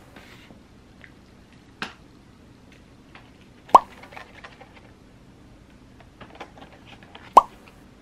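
A short bubbly pop, twice, nearly four seconds apart, each landing as a new product and its caption come up. Between the pops come faint crinkles and clicks of plastic grocery packaging being handled.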